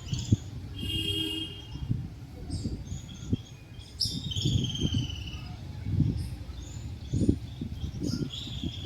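Birds chirping and calling in short bursts, over a low rumble with scattered soft thuds.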